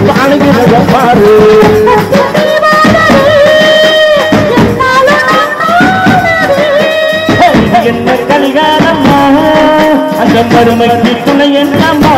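Procession music: a Tamil baith song's melody over a steady beat of large double-headed drums struck with sticks.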